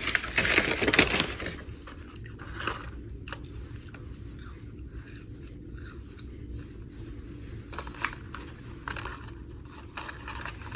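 A person biting and chewing crunchy fried potato food close to the microphone. It is loud and crunchy for the first second and a half, then quieter chewing with small mouth clicks.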